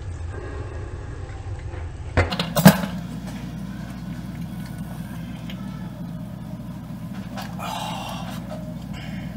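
A hand-held bottle opener prying the crown cap off a glass Corona Extra beer bottle, with two sharp clicks about two and a half seconds in as the cap pops off, then beer being drunk from the bottle over a steady low hum.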